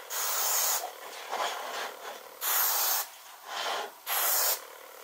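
Aerosol spray can spraying a finish in three bursts of about half a second each, with fainter hissing between them.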